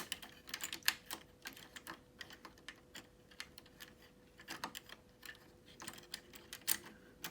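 Plastic toy coins clicking and tapping against each other and the till drawer as fingers pick through them, in light irregular clicks.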